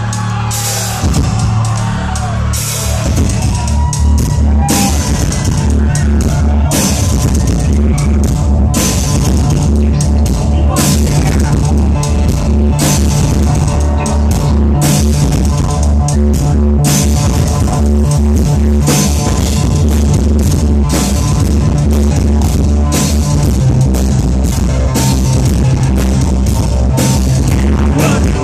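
Industrial band playing loud live through a concert sound system: a steady drum beat over heavy bass.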